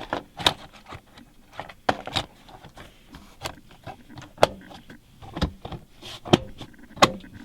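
Plastic seat rail covers of a GMC Acadia being pushed down and snapped into place: a series of sharp plastic clicks and knocks, about eight distinct ones spaced a second or so apart, with light rattling between.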